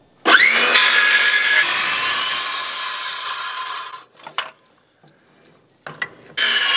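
Circular saw spinning up with a rising whine and cutting across a stack of clamped 2x4 joists: a shallow kerf cut, blade depth set to one 2x4 thickness, for a purlin notch. It runs about three and a half seconds and stops. After a pause with a few clicks, a second cut starts near the end.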